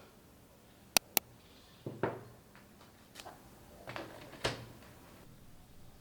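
Small household handling sounds: two sharp clicks in quick succession about a second in, then four or five soft knocks and taps spread over the next few seconds.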